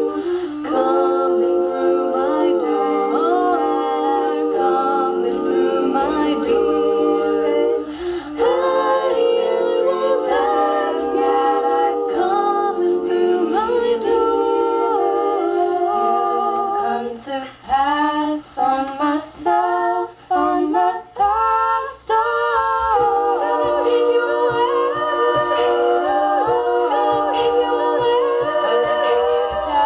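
An a cappella group of female voices singing sustained chords in close harmony, with no instruments. About seventeen seconds in, the voices switch to short chopped notes separated by brief gaps for several seconds, then go back to held chords. Sharp percussive clicks from the group keep a beat underneath.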